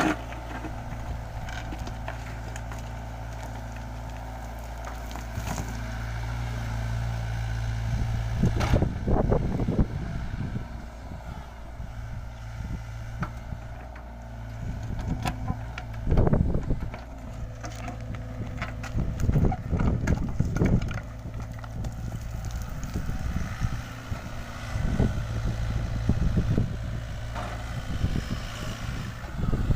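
LiuGong 906F mini excavator's diesel engine running steadily, with repeated loud bursts of scraping and crunching as the bucket spreads backfill soil.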